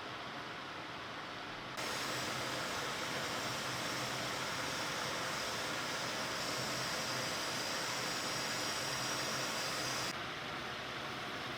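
Steady hiss of compressed air from an air tool, such as a spray gun or blast nozzle. It switches on about two seconds in and cuts off near the end, over a constant lower background noise.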